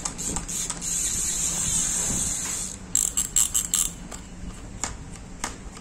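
A size-7000 Daiwa spinning reel being cranked by hand: a steady high whir from the turning rotor and gears, showing the reel runs smoothly. The whir stops a little under three seconds in, followed by a quick cluster of clicks and then a few light knocks from handling the reel.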